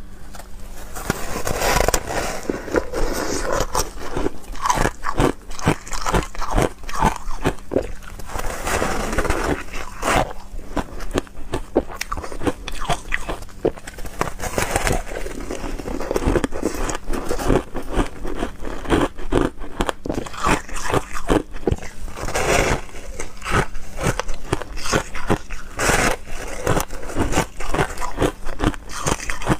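A person biting and chewing frozen juice ice, close to the microphone: many sharp crunches in quick succession, the ice cracking and grinding between the teeth.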